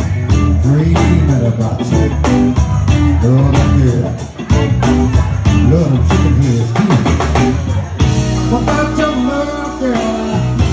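Live blues band playing, with a steady beat of evenly spaced drum hits; about eight seconds in the music changes to steadier held notes.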